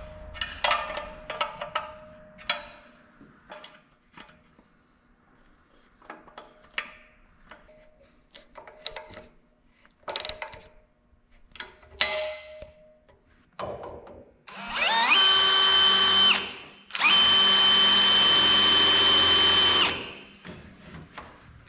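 Light clicks and knocks of a metal LED work-light bracket being fitted by hand, then a cordless drill drilling up into the mini excavator's canopy roof in two runs: a short one of under two seconds that spins up in pitch, then a steady run of about three seconds.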